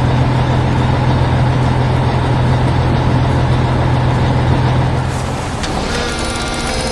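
Heavy construction machine's engine running with a steady low drone. About five seconds in the drone drops away and a different mechanical clatter with a high whine takes over.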